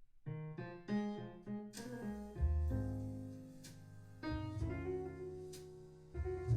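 Piano playing: a few quick notes, then low chords struck about every two seconds, each ringing and fading away.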